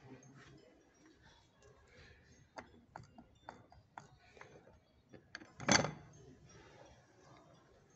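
Black matt metal soap dispenser being handled: a series of small clicks as its pump is pressed, then one louder knock about six seconds in as the dispenser body is gripped and moved.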